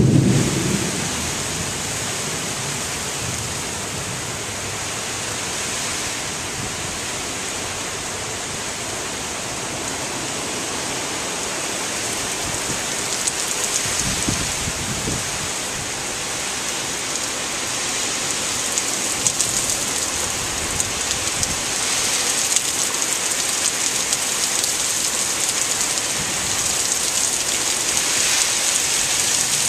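Heavy rain pouring down in a thunderstorm, a steady hiss of a downpour that grows slightly louder towards the end. A rumble of thunder dies away in the first second.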